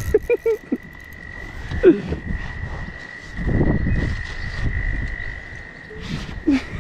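A hooked northern pike splashing and thrashing at the water's surface beside the canoe for about a second and a half midway, between short low croaking calls at the start, about two seconds in, and near the end.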